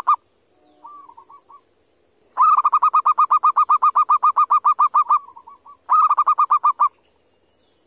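Wild local zebra dove (perkutut) cooing. A soft short phrase about a second in is followed by a long rapid run of staccato coos, about nine a second, lasting nearly three seconds, then a shorter run about six seconds in. A faint steady high hiss lies underneath.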